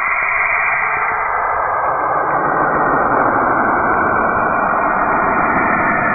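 Planetary radio emissions converted into sound: a dense, steady hiss that spreads down into a deeper rushing noise about two seconds in.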